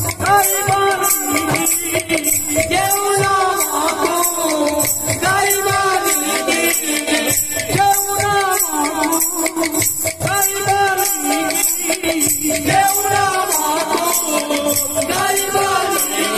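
Live Odia kirtan music: voices singing melodic phrases over a fast, steady beat of jingling metal percussion and double-headed hand drums.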